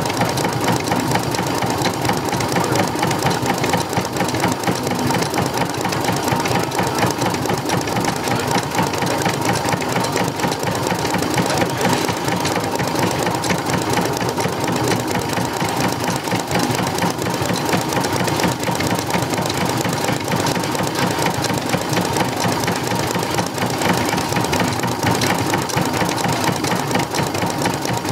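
Vintage stationary engine running steadily, with a dense, even mechanical clatter of rapid knocks.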